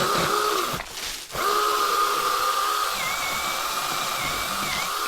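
Cordless pole saw's brushless electric motor and chain running with a steady whine, cut off briefly about a second in and then run up again.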